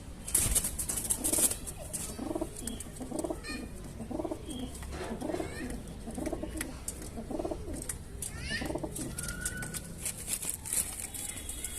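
Domestic pigeon cooing: a long run of low, evenly repeated coos, about two a second. A couple of short high chirps come in between, with sharp scratchy clicks that are loudest near the start.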